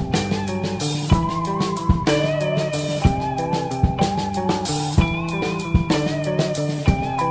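Rock music with guitar and a drum kit, held notes over a steady beat of about one strong drum hit a second.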